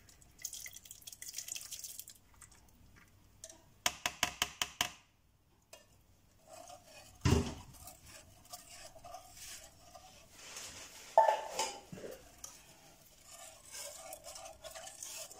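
Drained corn kernels tipped from a plastic colander into a pot of liquid, then a wire whisk stirring the mixture and clinking against the pot. There is a fast run of clicks a few seconds in and a couple of louder knocks later.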